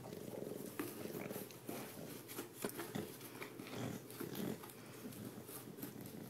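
Bulldog breathing noisily and snuffling as he noses at a cardboard box, with irregular scrapes and taps on the cardboard.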